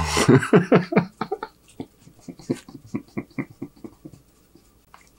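A man laughing: a loud outburst at the start, then a fast run of breathy laughs that fade out over about four seconds.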